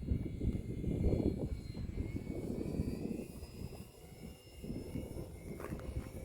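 Electric motor and propeller of a Durafly Tundra RC plane running as a faint high whine that wavers in pitch, under heavy gusty wind rumble on the microphone, which is the loudest sound.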